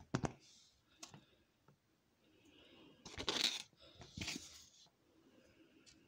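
Light clicks, then two short scratchy rustles about three and four seconds in: chopped cheese and fingers scraping against a foam bowl and plate as the pieces are added to the salad.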